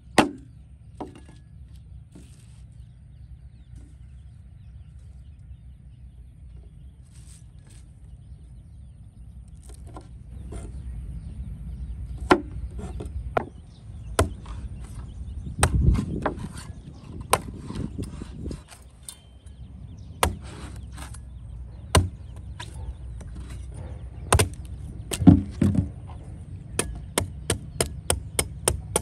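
Chopping with a blade: scattered single strokes through the middle, then a quick run of about three or four chops a second near the end, over a steady low hum.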